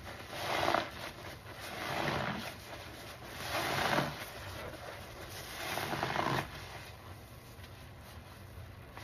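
A soaked sponge squeezed in thick soap suds, squelching and crackling four times about every second and a half, then quieter near the end as it is let go.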